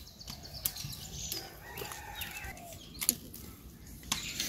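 Chickens clucking faintly, with a few sharp knocks; the loudest knock comes about three seconds in.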